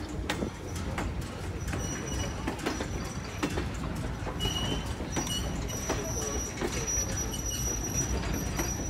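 Passenger coaches and a caboose rolling past on the near track: the wheels click over the rail joints above a low rumble, and a thin, high wheel squeal sets in about two seconds in and grows stronger later.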